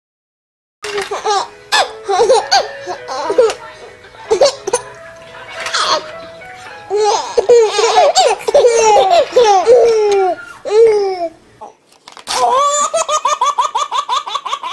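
Babies laughing: high infant giggles and belly laughs, with a short break about twelve seconds in, after which a rapid run of short laughs follows. The first second is silent.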